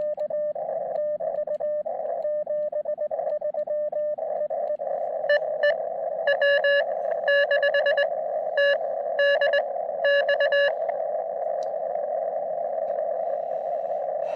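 Morse code (CW) from a portable ham radio receiver: a single-pitched beeping tone keyed in quick dots and dashes over a narrow band of receiver hiss. About five seconds in, a louder, harsher keyed tone takes over. For the last few seconds only the hiss remains.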